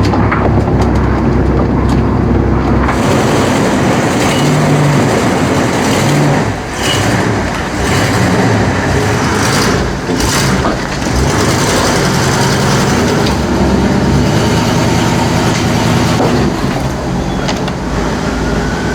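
A vehicle driving along: a steady road rumble and running noise with rattles. The deep low rumble eases off about three seconds in.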